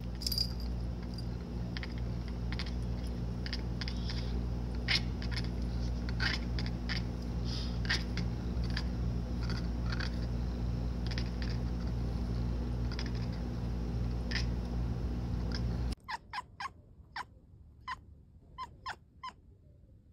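Orange-and-white cat chattering, a string of short clicking chirps in irregular runs over a steady low hum. About two-thirds of the way in the sound cuts to a quieter stretch with a few soft clicking chirps from a dozing calico tabby.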